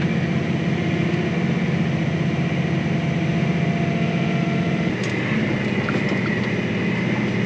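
Tractor engine running steadily under load while pulling a corn planter. About five seconds in there is a click and the low rumble deepens.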